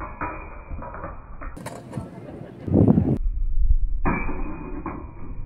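Steel longsword training blades clashing and scraping against each other in a bind, with wind rumbling on the microphone from about halfway through.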